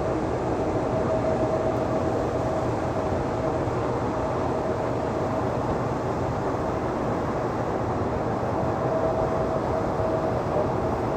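Jet airliner engines running, a steady roar with a steady tone through it.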